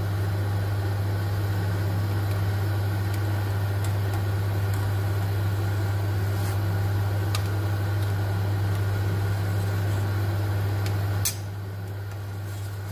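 Steady low hum and hiss of a stainless-steel pot of water at a rolling boil on a gas hob, with a few light clicks as a slotted metal skimmer knocks against the pot. About eleven seconds in, the hum and hiss drop to a lower level after a click.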